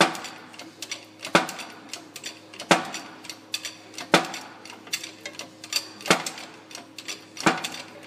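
Shop press being pumped to push a new wheel bearing into a steering knuckle, with a sharp click or pop about every second and a half and lighter clicks between. The popping is normal as the bearing is driven home toward bottoming out.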